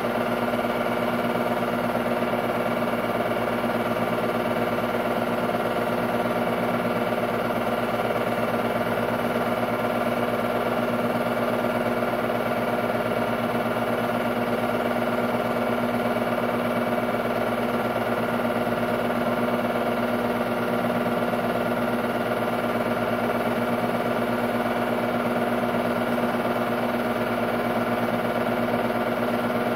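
Technicolor 810 8mm film-loop projector running: a steady mechanical hum and whir with several constant tones, not changing in pitch or level.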